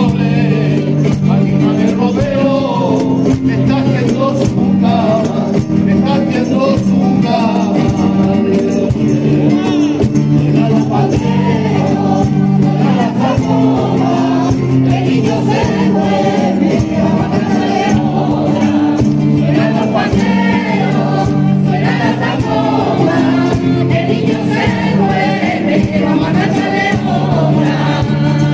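An Andalusian choir of mixed voices singing a Christmas song, accompanied by strummed Spanish guitars and rhythmic hand clapping.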